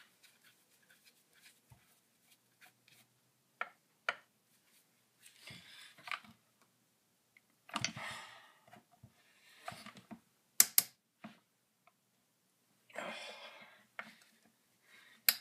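Sparse clicks, knocks and rustles from gloved hands handling the housing of a partly disassembled Poulan 1800 Woodshark chainsaw, with a pair of sharp snaps about ten and a half seconds in.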